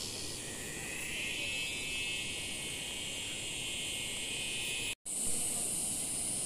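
Insects shrilling in the hillside vegetation. A pulsing chirp fades out within the first half second and gives way to a steady high buzz. After a brief cut-out about five seconds in, a higher steady insect drone takes over.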